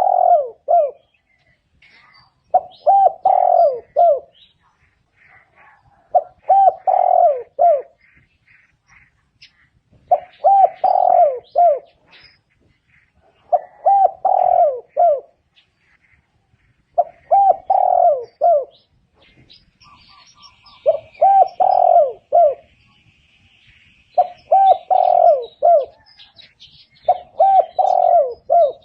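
Spotted dove cooing, a repeated phrase of several low coo notes given about every three and a half seconds, nine times in a row. Faint higher chirps of other birds sound between the phrases.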